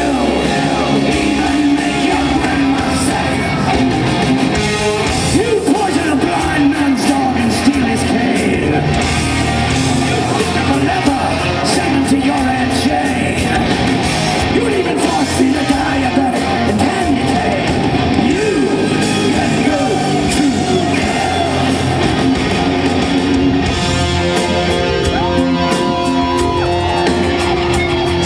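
Live hard rock band playing, with a male lead singer singing and yelling into a microphone over drums and electric guitars.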